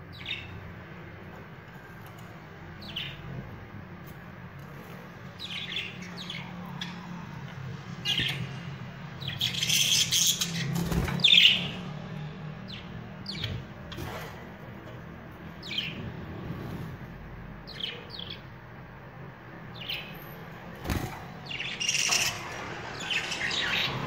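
Pet budgerigars chirping in short, quick calls, busiest about ten seconds in and again near the end. Two sharp knocks come in among the calls.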